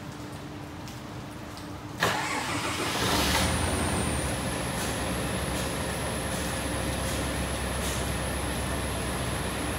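A bus's diesel engine starts abruptly about two seconds in, then runs steadily, a low rumble with a thin high whine over it.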